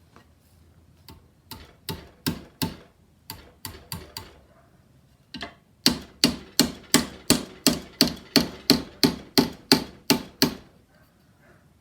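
Hammer blows on sheet metal as a radiator shroud is beaten into shape: a few scattered strikes, then a steady run of about fifteen blows at roughly three a second.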